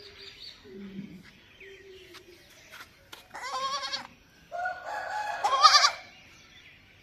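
Baby goat bleating: a faint low call about a second in, then two loud, wavering bleats, the second one longer and louder.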